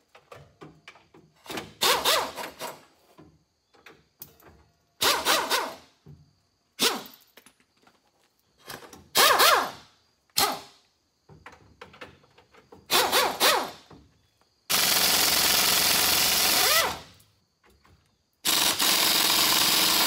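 Wrench work on a pickup's rear-bumper bolts: a series of short bursts as bolts are worked loose, then a handheld power tool spinning a socket on the bolts in two steady runs of about two seconds each near the end.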